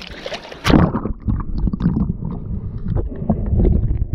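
Splash as the microphone plunges under the water less than a second in. After that comes muffled underwater sound: low churning water with scattered clicks and crackles, as a clam rake works the sandy bottom.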